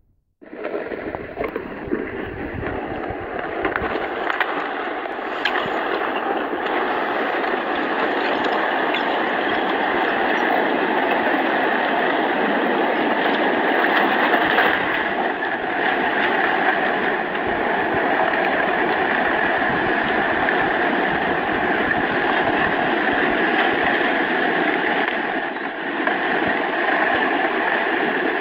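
Landslide sliding into the sea: a loud, steady rushing of churning water and moving earth and debris, with a few sharp cracks in the first few seconds.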